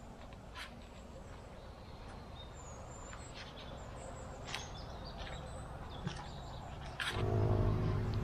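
Footsteps crunching through dry leaf litter and twigs, with scattered sharp snaps, and faint birds chirping high above. About seven seconds in, a louder low steady hum starts.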